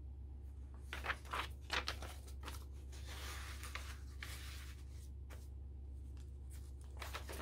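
Handmade junk journal pages being handled and turned: a few short rustles about a second in, a longer rustle around three seconds in, and more near the end, over a steady low hum.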